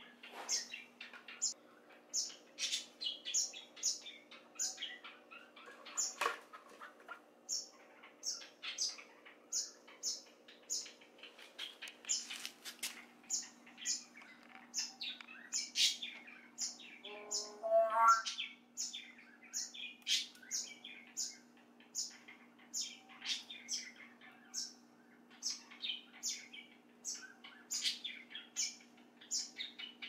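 White-breasted waterhens chirping: short high-pitched chirps repeated about twice a second, with one lower, rising call a little past halfway.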